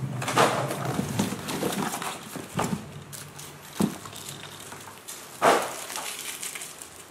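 Handling noise from unboxing BMX tyres: rustling of a cardboard box and packing as tyres are pulled out and turned over, with a few soft knocks, the loudest about five and a half seconds in.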